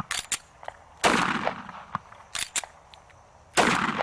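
Two shots from a semi-automatic pistol, about two and a half seconds apart, each trailing off in a short echo. The pistol is fired with the other hand gripping the slide to keep it from cycling. Short sharp metallic clicks of handling the pistol fall between the shots.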